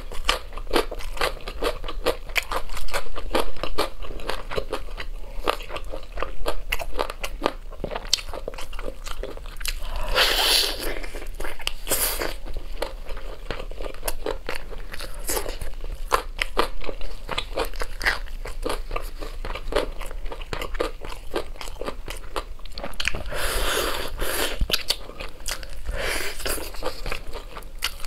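Close-up chewing and biting on braised ribs on the bone, with a quick run of small wet crunches and clicks. Longer noisy sounds come about ten seconds in and again near the end.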